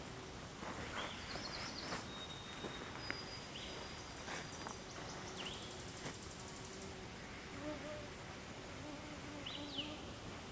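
Quiet forest ambience with faint, scattered short bird chirps. An insect buzzes close by for a few seconds near the end.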